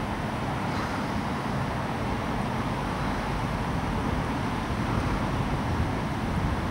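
Strong wind blowing across the open water and buffeting the microphone: a steady rush with a choppy low rumble.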